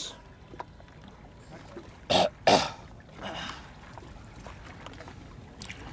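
A freediver floating on his back clears his throat in his final preparation before the dive: two quick, loud rasps about half a second apart, a little over two seconds in, then a softer one about a second later.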